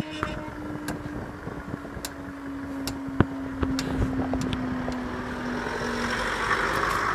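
Level crossing barriers rising, with a steady hum from the barrier mechanism that falls slightly in pitch and fades out about six seconds in, and scattered clicks. Near the end a car approaches the crossing, its noise building.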